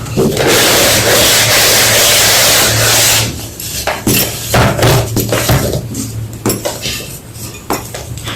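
Homemade gym chalk block being crushed: a continuous crumbling grind for about three seconds, then a run of separate sharp crunches and snaps.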